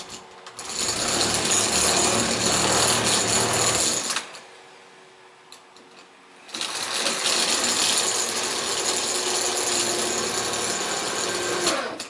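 Power drill boring into a Defiant deadbolt in two long runs, the first about three and a half seconds and the second about five, with a pause of a couple of seconds between them.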